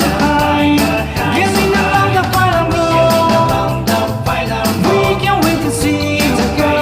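Upbeat rock backing music with a steady drum beat, guitars and a sung melody.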